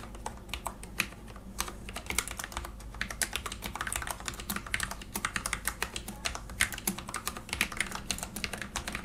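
Typing on a mechanical keyboard with Cherry MX Speed Low Profile switches: quick, irregular light key clicks, several a second, in a steady run.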